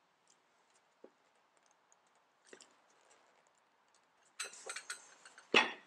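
Small clicks and ticks of a screwdriver working the top-cover screws of a Zenith 24T2 carburettor, each screw turned a fraction past snug to seal the gasket. A few faint ticks at first, a quick cluster of clicks about four and a half seconds in, and a sharper click near the end.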